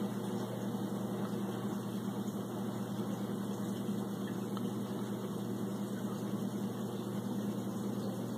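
Steady low mechanical hum of aquarium equipment running.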